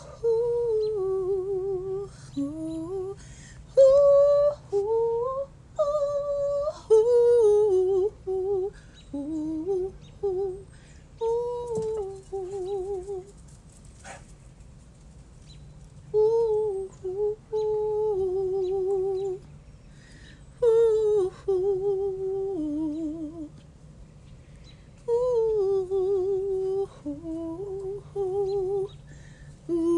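A woman's wordless humming: free, improvised phrases that wander around one middle pitch, with quick wavering trills, broken by short pauses for breath.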